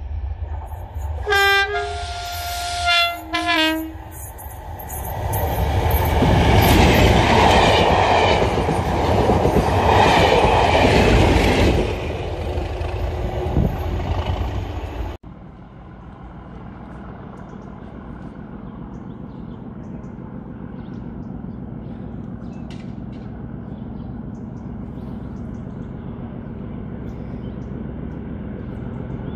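Diesel-hauled train sounding its two-tone horn in two blasts as it approaches, then passing close by with heavy engine and wheel noise. About fifteen seconds in, the sound cuts off suddenly to a low, steady background hum.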